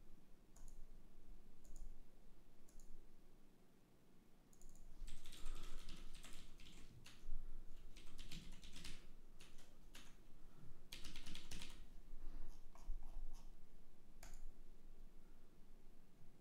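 Typing on a computer keyboard in several quick bursts, with scattered single clicks before and after.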